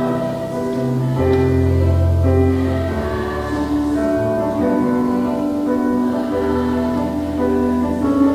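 Live music from a school chorale and its accompanying ensemble of strings and other instruments: a slow passage of sustained chords over a moving bass line.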